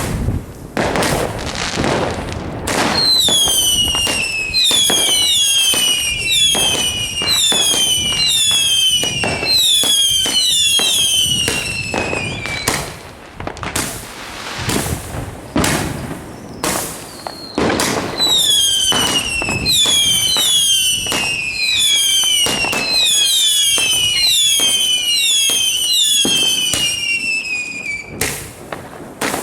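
Fireworks going off: a steady stream of sharp bangs and crackles, with two long runs of whistling shots in quick succession, each whistle falling in pitch, about three seconds in and again from the middle to near the end.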